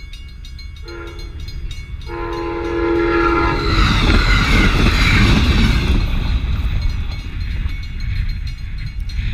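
Amtrak passenger train sounding its horn for the grade crossing in two blasts, the second longer, then passing close by with a loud rush and rumble of wheels and coaches that fades after about three seconds. A crossing bell rings steadily and faintly underneath.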